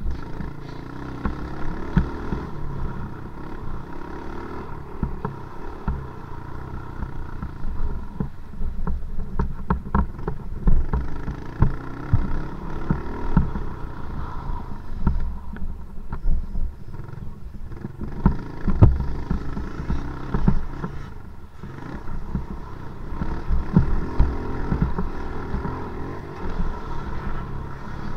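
Motocross dirt bike engine running under load, its pitch rising and falling as the throttle changes, with repeated knocks and rattles from riding over rough, rutted dirt.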